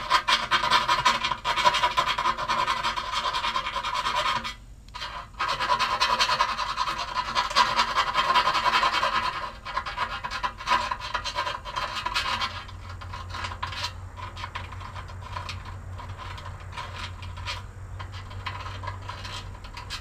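A hand file rasping around freshly drilled half-inch holes in a steel tractor loader bucket, deburring them: quick back-and-forth scraping strokes with a short break about four and a half seconds in, becoming lighter and sparser after about twelve seconds.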